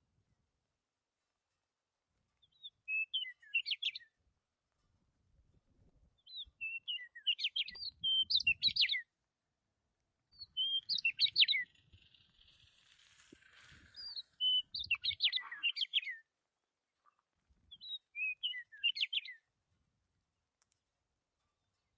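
A small songbird singing: five bursts of quick, high chirping notes a few seconds apart, with silence between them.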